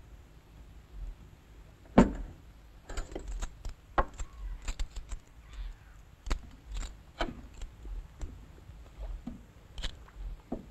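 Clinks and knocks of dishes and a bottle being handled and set down on a table, irregular and scattered, the loudest a sharp knock about two seconds in.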